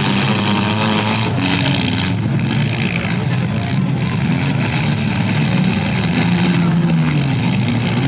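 Several compact cars' engines revving and running at once in a demolition derby heat, pitch rising and falling as the drivers accelerate and back up.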